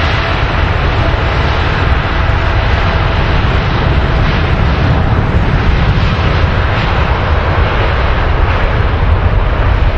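Twin jet engines of a Boeing 787 Dreamliner at takeoff thrust on its takeoff roll: a loud, steady jet noise with a deep rumble and a faint whine.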